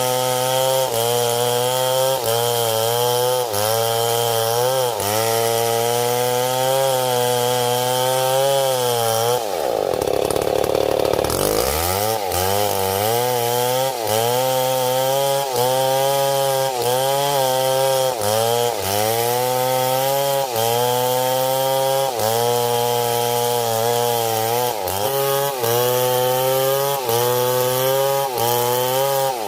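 Stihl MS 070 two-stroke chainsaw running at full throttle, cutting wood under load. Its pitch wavers up and down as the chain bites. About ten seconds in, the pitch drops sharply for a second or two, then climbs back to full speed.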